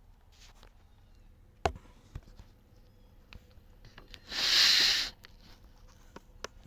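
A sharp click, a few faint ticks, then a loud hiss lasting about a second near the middle.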